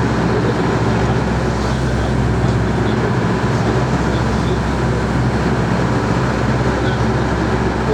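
Sport-fishing charter boat's engine running steadily under way: a constant low drone.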